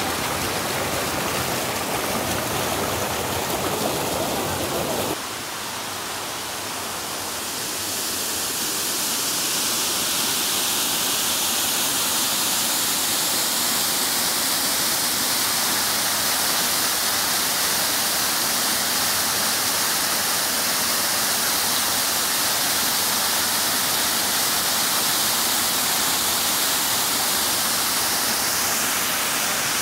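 Mountain stream water rushing over rocks. About five seconds in it changes abruptly to the steady, higher-pitched rush of a waterfall pouring down rock ledges and splashing into a pool.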